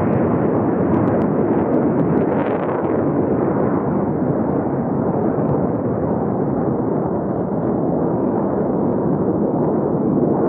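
Jet aircraft flying past in formation: a steady, dense rumble of jet engine noise with no distinct tones.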